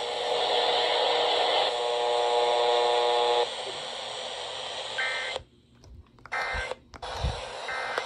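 Emergency alert radio's speaker on weak, distant reception: hiss and static, with a steady buzzing tone for about a second and a half near the start. Then the audio cuts in and out several times, broken by three short high beeps.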